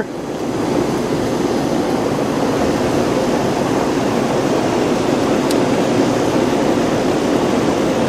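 Pool pump running steadily: a constant motor hum and rush of water through the pump and plumbing. A faint click partway through.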